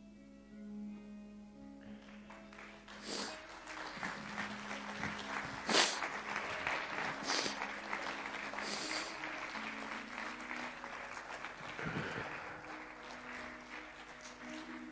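Audience applauding over soft background music. The applause swells about two seconds in, with a few louder individual claps, and fades near the end.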